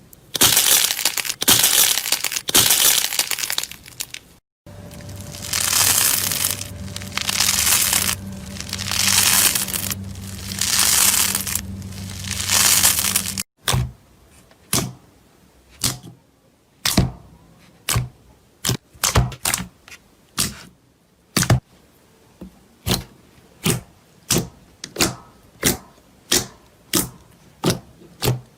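Slime being squeezed and pressed in the hands, crackling. First comes dense continuous crackling, then swelling crackly squishes about every second and a half over a low steady hum. After a cut, a string of sharp single pops follows, one to two a second.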